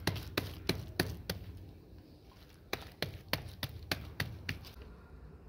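Wet hands patting maize dough flat into a round makki di roti, a quick run of slaps about three a second, a short pause, then another run.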